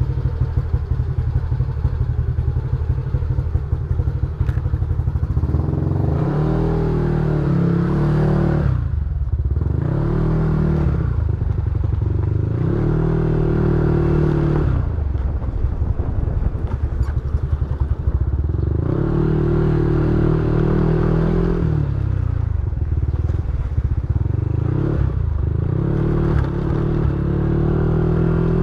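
Yamaha NMAX scooter's single-cylinder engine through an aftermarket TSMP exhaust, idling with a rapid, even putter. From about six seconds in it is revved about six times, each time rising, holding for a second or two, then dropping back to idle.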